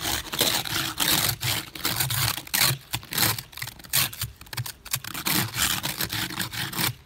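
Ice scraper scraping ice off a car windshield in quick repeated strokes, about two a second.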